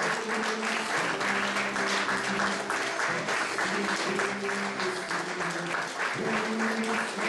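Audience applauding steadily, dense clapping, with music underneath playing a slow melody of held notes.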